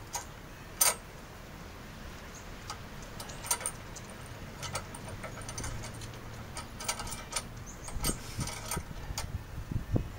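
Metal hardware clicking and clinking as bolts and a brace are handled and test-fitted, with one sharp click about a second in, scattered taps after, and a couple of dull knocks near the end.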